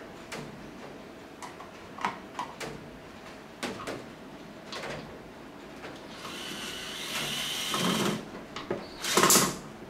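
Electric fan parts being handled during reassembly: scattered light clicks and knocks, then a hiss of about two seconds, with a loud clatter near the end.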